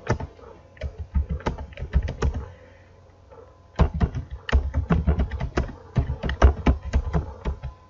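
Typing on a computer keyboard: quick runs of key clicks, with a pause of about a second midway.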